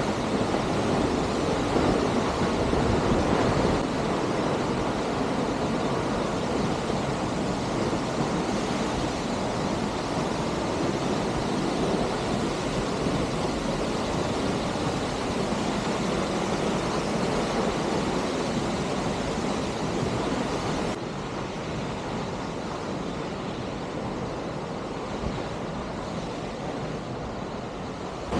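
Steady rushing noise of Hunua Falls, which is in full flow. It drops a little about three-quarters of the way through.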